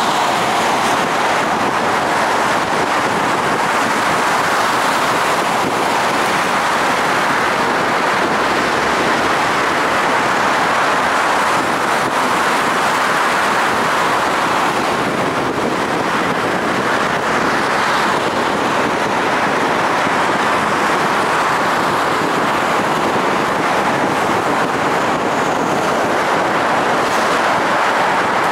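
Steady road noise from a car driving at highway speed: an even rush of tyre and air noise, with no engine note or other event standing out.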